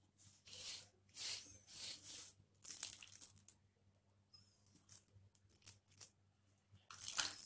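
Metal spoon scooping potato masala out of a glass bowl and pressing it into capsicum halves on a plate: a series of short scraping, crunching strokes, the loudest near the end.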